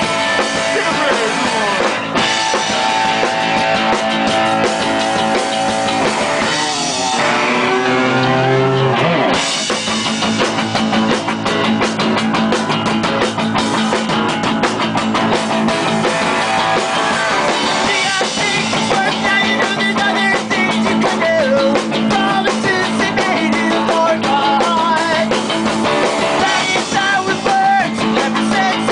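Live rock band playing loud: electric guitar and a drum kit with cymbals, with sliding guitar pitches about seven seconds in.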